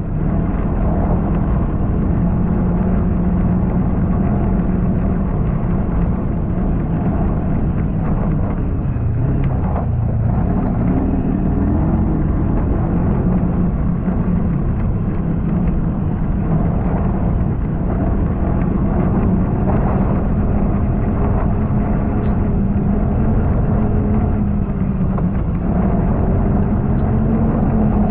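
Snowmobile engine running at a steady trail speed, its pitch dipping slightly about a third of the way in and then climbing back up as the throttle is opened again.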